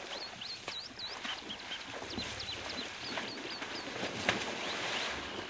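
Birds chirping: many short, quick calls, several a second, over a soft hiss, with a single sharp knock just past four seconds in.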